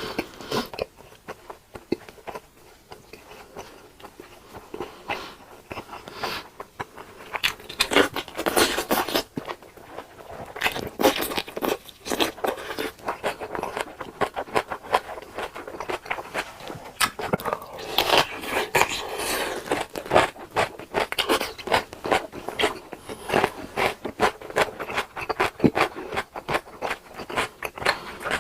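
Close-miked eating: a mouth biting and chewing food with irregular crunching clicks. The bites are sparse at first and grow busier and louder from about eight seconds in.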